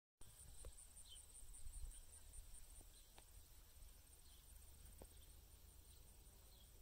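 Near silence with faint field ambience: insects chirping steadily in a fast high pulse, a low rumble underneath, and three faint clicks.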